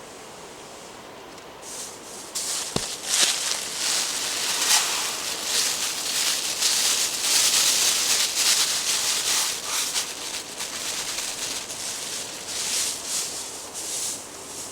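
Irregular rustling and rubbing that swells and fades, with a single short knock about three seconds in.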